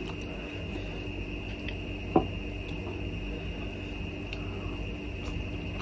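Steady room hum with faint handling sounds as steamed momos are pulled apart by hand, and one sharp click about two seconds in.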